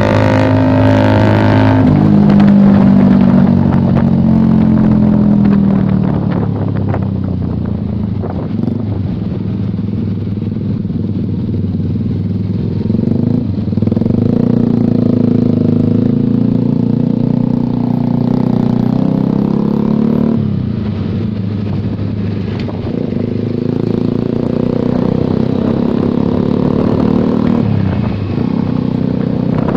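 Suzuki GSX-R150 single-cylinder engine breathing through a CLD aftermarket exhaust, heard while riding. The exhaust note rises and falls with the throttle and breaks off and picks up again several times, as on gear changes.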